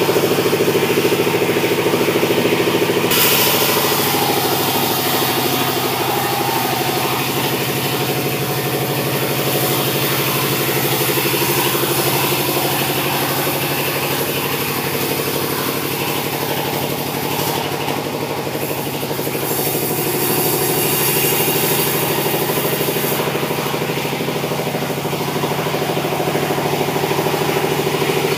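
Sawmill machinery running: an engine drones steadily throughout, and a louder hissing noise, the saw cutting through sengon wood, comes in about three seconds in and swells again around twenty seconds.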